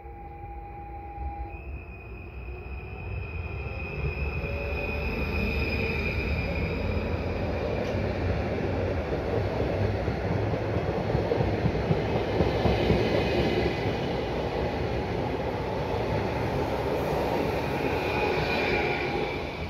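PKP Intercity ED160 electric multiple unit running by, with rolling noise that builds over the first few seconds and stays loud until it eases near the end. A steady high whine rides over it.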